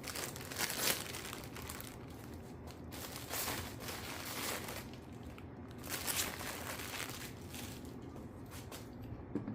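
Rustling and scraping of plastic parts being handled and slid into place: irregular crinkling strokes, the strongest about a second in and around six seconds in.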